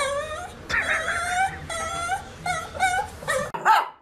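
A dog whining and yipping: a run of short, high-pitched calls that waver up and down. About three and a half seconds in, the background cuts off and one last short call follows.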